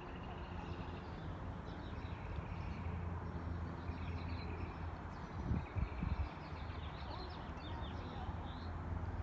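Outdoor ambience: birds chirping over a low steady rumble, with a few brief low thumps a little past the middle.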